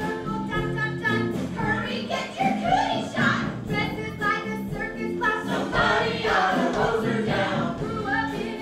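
A musical-theatre cast singing together as an ensemble over instrumental accompaniment.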